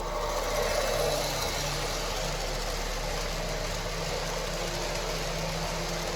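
O gauge model passenger train running on the layout: a steady engine-like rumble with rolling noise that comes up at the start and then holds even.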